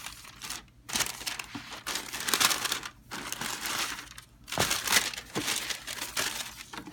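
Packing paper in a new sneaker box crinkling and rustling in several bursts as a pair of shoes is unwrapped and lifted out.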